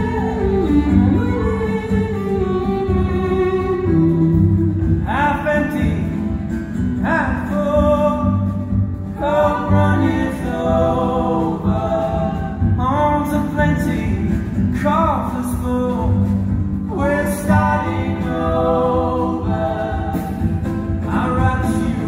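Live acoustic band playing: violin phrases sliding into their notes about every two seconds over upright bass and strummed acoustic guitar.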